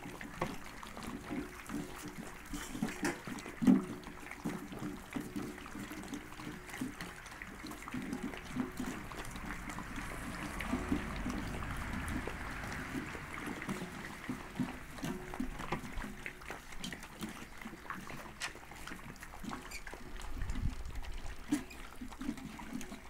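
A litter of brindle puppies eating from one metal bowl together, lapping and slurping wet food with busy irregular smacks and small clicks. One sharper knock comes about four seconds in.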